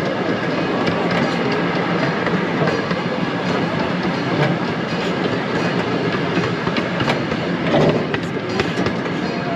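Miniature park train running along its track, heard from inside an open passenger car: a steady rumble and rattle of the wheels and cars with frequent small clicks, briefly louder near the end.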